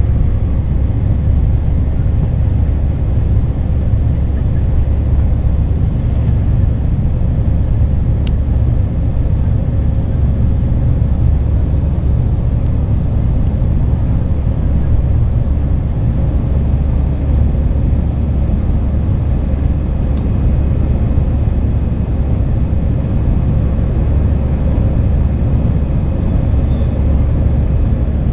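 Airbus A320 engines and airflow heard from inside the passenger cabin: a loud, steady low rumble with a faint steady hum above it, unchanging throughout.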